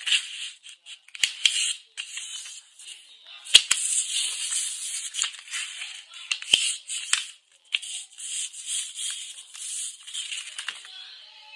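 A sheet of white paper being handled and folded on a desk mat: irregular rustling and sliding, with a few sharp snaps as the paper is flipped and creased.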